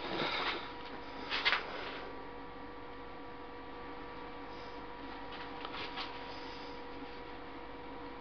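Steady electrical mains hum, with a few brief rustling, rubbing sounds at the start and about a second and a half in, and fainter ones later.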